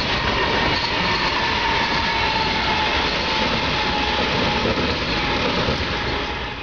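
BNSF wide-cab diesel locomotives passing close by, engines running over the rumble of wheels on rail, with a steady high whine that sinks slightly in pitch.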